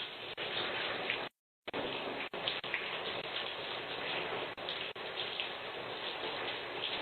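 Steady hiss with a few faint ticks, heard through a doorbell camera's low-quality microphone; the sound drops out completely for a moment about a second in.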